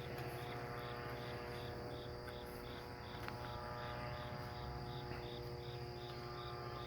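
A cricket chirping steadily, about three short high chirps a second, over a faint steady hum.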